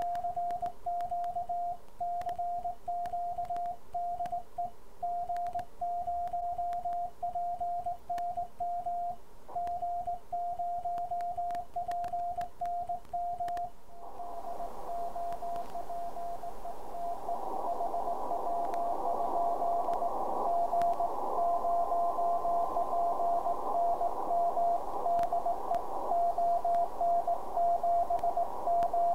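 Hand-sent Morse code on a Begali Spark straight key, heard as the Ten-Tec Orion transceiver's sidetone: one steady beep keyed in dots and dashes. About fourteen seconds in, receiver hiss comes up around the tone and the Morse carries on through it, now another station's CW coming in over the air during a QSO.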